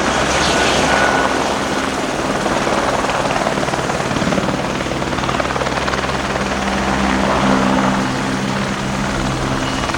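Helicopter engine and rotor running steadily: a loud, even drone with a constant low hum.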